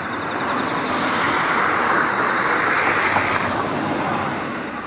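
A road vehicle passes by: a steady rush of engine and tyre noise that swells, peaks in the middle and fades away again.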